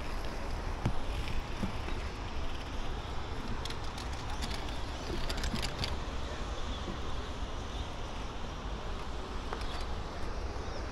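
Wind rumbling on the microphone, with a cluster of light clicks and taps around the middle.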